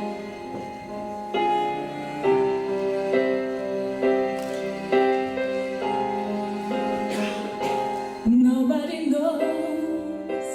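Piano introduction to a slow pop ballad, with chords struck about once a second. A singing voice comes in about eight seconds in.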